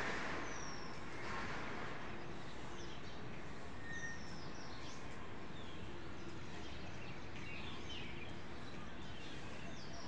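Steady outdoor background noise with a few faint, short, high chirps of small birds scattered through it.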